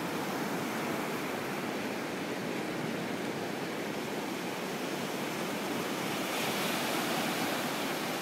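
Small surf breaking and washing up a sandy beach, a steady rushing wash that swells louder about six seconds in.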